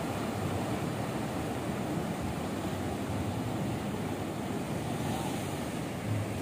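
Sea surf breaking against a rocky shore: a steady rush of waves.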